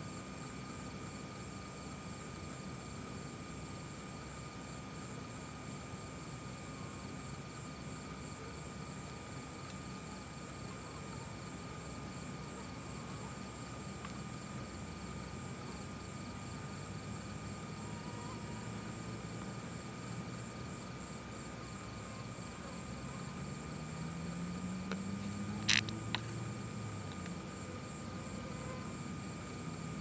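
Night insect chorus: several steady high trills, some of them pulsing fast, over a low droning hum that climbs in pitch near the end. One sharp click stands out shortly before the end.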